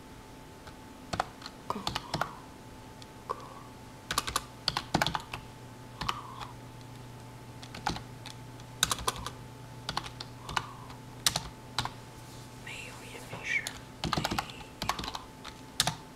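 Typing on a computer keyboard: short, irregular runs of key clicks separated by pauses.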